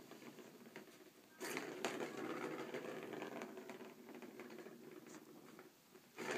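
Plastic ball rolling around the circular track of a cat scratcher toy: a rattling rumble that starts about a second and a half in and dies away near the end.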